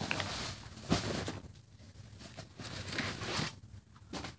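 Rustling and handling noise from a fabric school backpack being moved about as folders are taken out of it, with a sharper knock about a second in.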